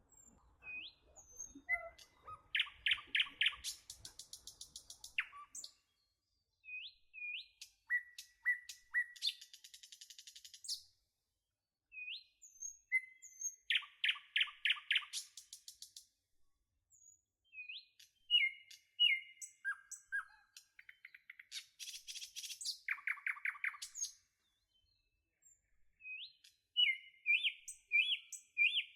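Several songbirds calling and singing in turn: short upswept whistles, rapid trilled phrases and buzzy chirps, with brief pauses between bouts.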